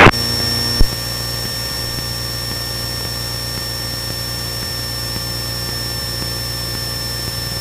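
Steady cabin drone of a Cessna 172N in cruise, its four-cylinder Lycoming engine running evenly, with a thin high-pitched whine over it. A single short click about a second in.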